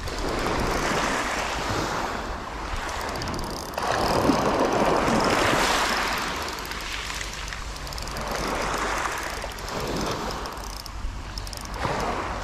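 Small sea waves washing against the shore, swelling and fading every few seconds, with wind rumbling on the microphone.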